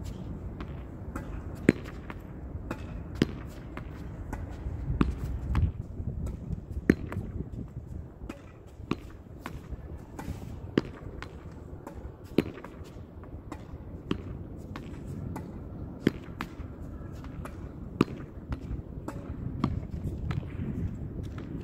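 A ball being hit against a wall over and over: a sharp smack about every two seconds, sometimes with a lighter knock close behind, over a steady low background rumble.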